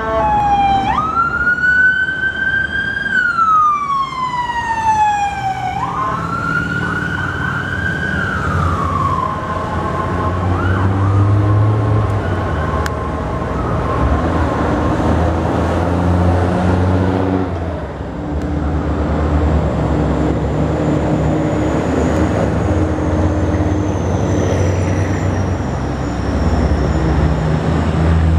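Whelen electronic siren on a RAM 5500 police tow truck wailing in slow rising and falling sweeps, then holding a steady tone and stopping about ten seconds in. After that comes the low running of the truck's engine and the surrounding traffic.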